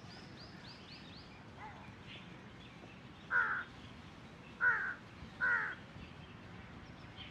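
Large-billed (jungle) crow giving three harsh caws, the first about three seconds in and the last two close together a second later.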